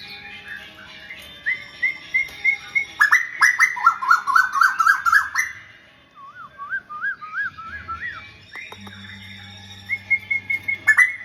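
Tuwu bird singing actively in runs of quick whistled notes, with a loud rapid burst of repeated rising notes about three seconds in, then wavering whistles. A low steady hum comes in partway through.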